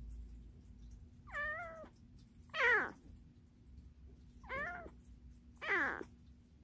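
Orange tabby kitten meowing four short times, a second or two apart, each call sliding down in pitch.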